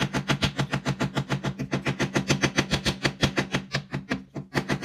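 Rapid, even tapping and scraping of a digging tool against the plaster block of a gemstone dig kit, about nine strokes a second, easing off briefly near the end. A steady low hum runs underneath.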